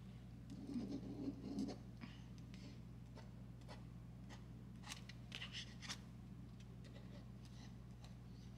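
Pencil scratching on sketchbook paper in short, faint strokes as a cloud is drawn, in two clusters, near the start and about five seconds in.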